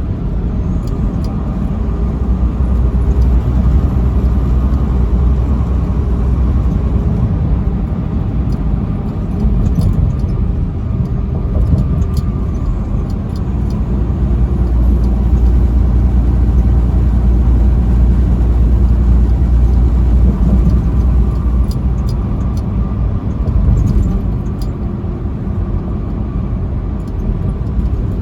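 A truck driving on the highway: engine and tyre noise as a steady deep rumble, easing a little near the end.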